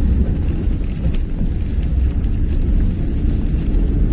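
Steady low rumble of road and engine noise heard inside a moving car, with a few faint clicks and knocks.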